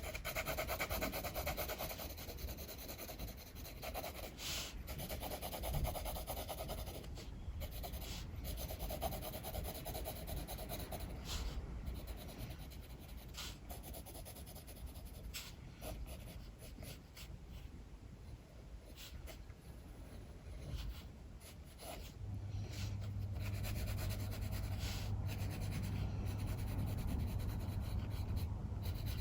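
Pencil sketching on paper: stretches of scratchy strokes with light ticks as the pencil lifts and touches down. A steady low hum comes in about three quarters of the way through.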